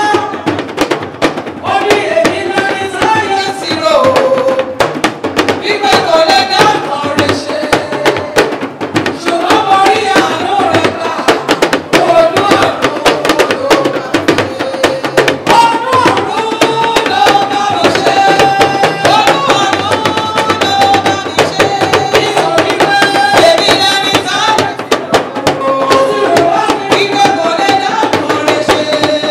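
Yoruba talking drums (dundun) beating a busy rhythm with curved sticks, under a woman singing a melody through a microphone and loudspeakers.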